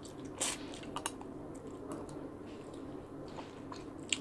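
Close-up eating sounds: a short sip of sinigang broth from a soup spoon about half a second in, then quiet chewing with small scattered mouth clicks.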